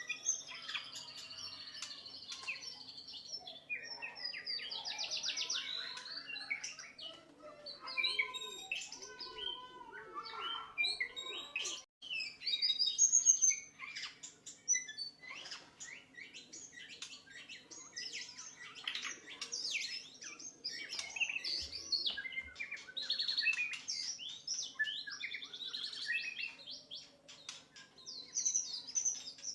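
White-rumped shama (murai batu) singing a long, varied song of whistles, rapid trills and buzzy phrases, broken by a brief gap about twelve seconds in. A faint steady hum runs underneath.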